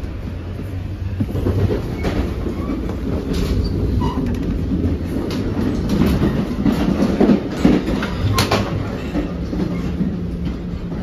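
NJ Transit Multilevel coach under way, heard from inside the car: a steady low rumble of the running train, with scattered clicks and knocks from the wheels and car body. It grows louder about a second in.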